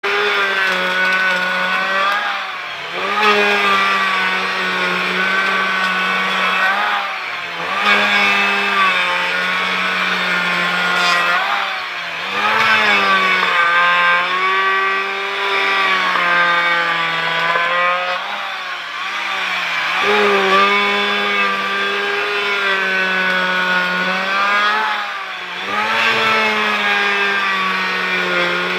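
A power woodworking tool's motor running steadily while levelling a wooden surface. Its pitch sags and recovers every few seconds as it takes load on each pass.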